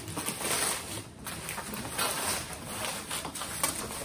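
Plastic bubble wrap crinkling and rustling as it is unwrapped and pulled off a box, with a short lull about a second in.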